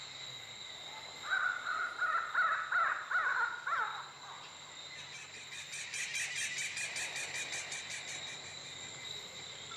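Night ambience with insects chirring in a steady high tone. About a second in comes a run of loud, harsh, wavering animal calls lasting about three seconds. From about five seconds a fast pulsing trill runs for three to four seconds.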